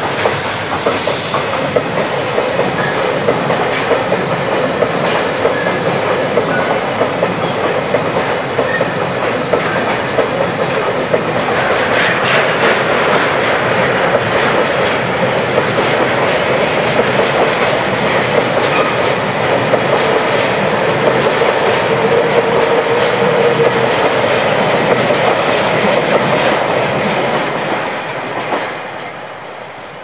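A freight train of tank wagons and tank-container flatcars rolling past at close range: steady wheel-on-rail rumble with clicks as the wheels cross the rail joints, fading away near the end as the last wagons pass.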